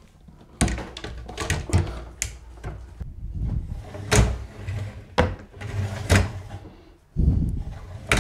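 Drawer of a flat-pack washing machine pedestal being slid in and out on its roller runners, rumbling along the rails with several sharp clangs. The clanging comes from the screws holding the rails, which bang against the runner wheels.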